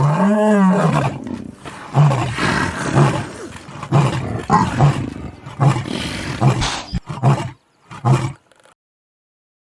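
A mammal's calls: one long call that rises and falls in pitch, then a run of short, low, rhythmic calls about one a second, stopping shortly before the end.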